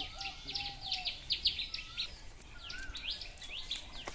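Small birds chirping: a quick run of short, sharp, falling chirps, with a few softer, lower whistled notes among them.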